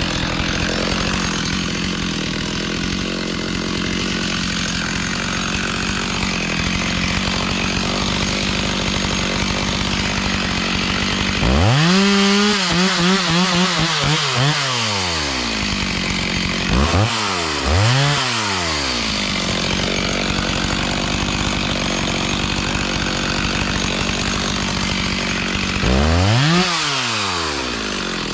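Chainsaw engine idling, revved up and back down several times: one longer rev about twelve seconds in, two quick blips a few seconds later, and another rev near the end.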